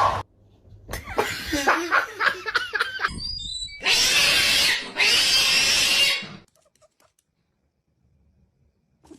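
An animal's vocal sounds: a quick run of short pitched squeals or grunts, then two long, loud, noisy bursts, then silence.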